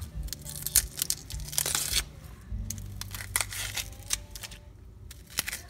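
Dry outer skin of a red onion being peeled off by hand: crackling and tearing in a few short spells, the longest about one and a half seconds in.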